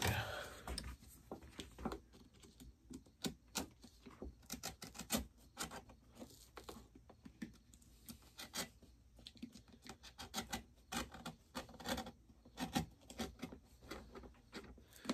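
Cobbler's pincers gripping and prying an old leather sole off a wood-pegged cowboy boot, making a quick, irregular run of small clicks and cracks as the stubborn sole is worked loose.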